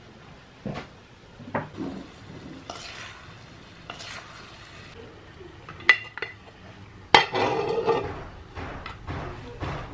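Cooking utensils knocking and scraping against pots and dishes: a few separate clinks and scrapes, with the loudest knock about seven seconds in followed by about a second of clatter.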